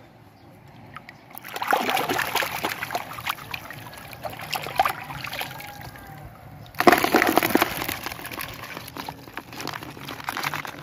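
Shallow seawater sloshing and splashing close by as someone wades and gropes through it by hand, in uneven bursts starting about a second in, with the loudest splash about seven seconds in.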